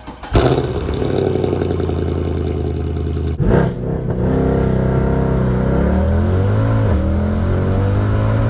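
Mercedes C63 AMG's 6.2-litre V8 heard at the exhaust: a sudden loud burst of revs, then running steadily. After about three seconds it gives way to the same engine heard from inside the cabin while driving, its pitch rising and falling with the throttle.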